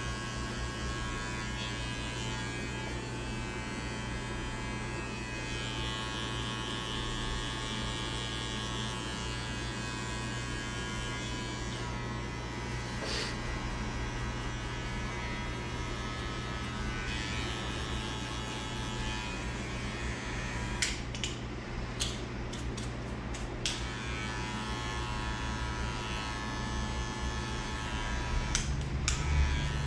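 Electric hair clippers buzzing steadily while cutting a fade. A quick run of sharp clicks comes about two-thirds of the way through, and two more near the end.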